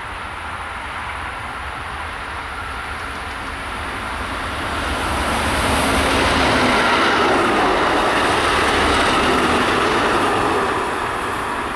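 An RTB Cargo diesel locomotive hauling a string of yellow track-maintenance machines approaches and passes. The engine and wheel noise build from about a third of the way in, stay loud through the pass, and start to fade near the end.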